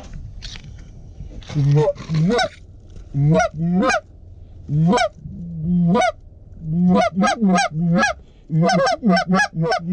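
Hand-blown goose call sounding a string of honks, each note starting low and breaking upward into a sharp honk. The calls begin about a second and a half in and quicken into a fast run of honks and clucks near the end, calling to a flock of lesser Canada and cackling geese.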